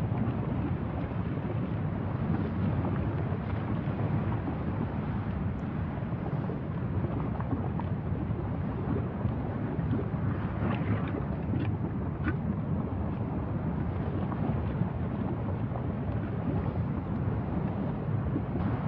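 Wind buffeting the microphone: a steady low noise, with a few faint short higher sounds a little past the middle.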